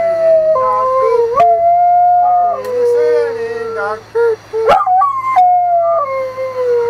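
Dog howling on cue in long drawn-out howls that slide slowly down in pitch, with a brief break about four and a half seconds in, while a woman's voice sings along.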